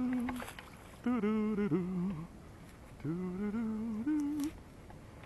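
A man humming a wordless tune in three short phrases of held notes that step up and down in pitch, with a few faint clicks between them.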